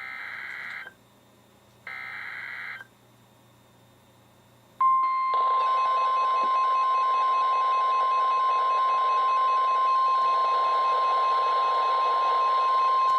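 Two short bursts of NOAA Weather Radio SAME data-header tones, about a second apart, closing the three-times-repeated alert header. After a pause of a couple of seconds, the steady 1050 Hz weather-radio warning alarm tone sounds over radio hiss, signalling that a warning message follows.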